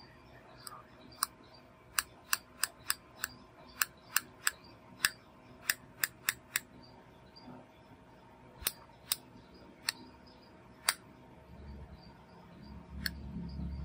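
S Pen stylus tip tapping and clicking on the glass screen of a Samsung Galaxy Note 9 while writing by hand: about twenty sharp, irregular clicks. A low hum comes up near the end.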